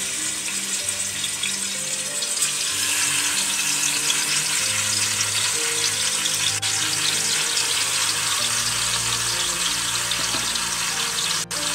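Marinated chicken leg pieces frying in hot oil in a pot: a steady sizzling hiss. Soft background music of low held notes runs underneath.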